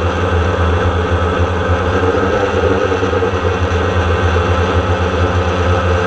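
DJI Phantom quadcopter's four motors and propellers running in a steady drone, heard close up through the camera mounted on the drone itself.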